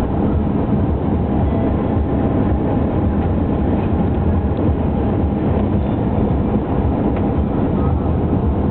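Steady low rumble of road and engine noise inside the cabin of a moving Lexus car.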